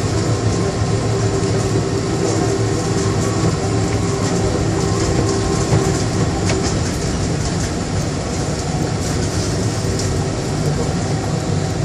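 Bombardier Innovia APM100 rubber-tyred people mover cruising between stations, heard inside the car: a steady rumble of tyres on the guideway with a steady motor whine and a few light clicks.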